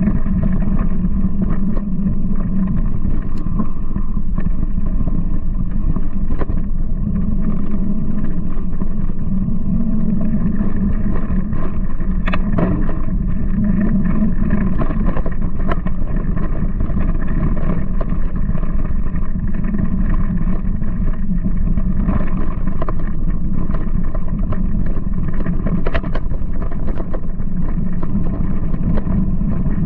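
A Giant Talon mountain bike rolling over a dirt trail, heard through a handlebar-mounted camera as a loud, steady rumble of tyres, frame vibration and wind on the microphone. A few sharp knocks come through as the bike hits bumps.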